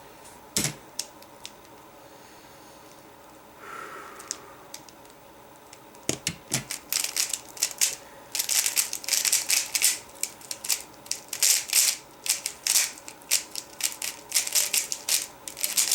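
3x3 Rubik's Cube being turned rapidly in a timed speedsolve: the plastic layers clicking and clacking in quick runs. A few isolated clicks come first, and the dense turning starts about eight seconds in.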